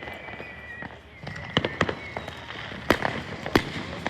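Consumer fireworks going off: a high whistle twice in the first half, then a string of sharp bangs and pops over crackling, the loudest two about three and three and a half seconds in.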